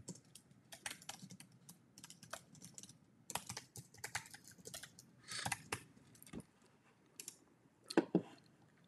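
Typing on a computer keyboard: a run of quick, irregular key clicks for about six seconds, a short pause, then one sharper, louder click about eight seconds in.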